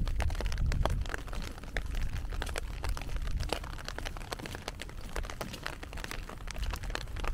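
Rain falling, with many sharp, irregular raindrop ticks close by over a steady hiss, and a low rumble that is loudest in the first second.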